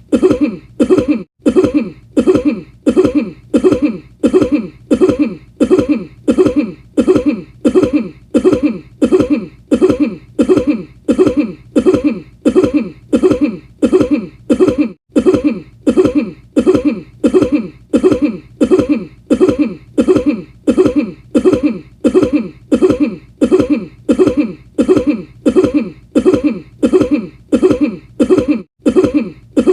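A person's cough looped over and over, about two coughs a second at an even, unchanging rate. It breaks off for an instant about a second in, again halfway, and once more near the end, where the loop restarts.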